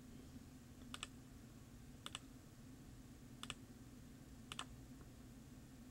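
Computer mouse button clicked four times, about a second apart, each click placing a manual tracker point that steps the footage forward a frame. Under it, a faint steady hum.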